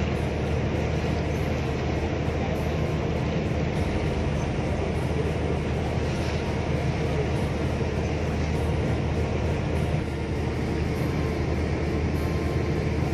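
Steady drone of a boat engine running at a constant speed, with a hiss of wind and water over it.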